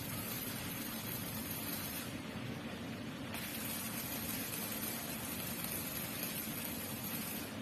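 Electric arc welding on a steel frame: the arc's steady frying hiss breaks off about two seconds in and strikes again a little over a second later, then stops right at the end. A steady low hum runs underneath.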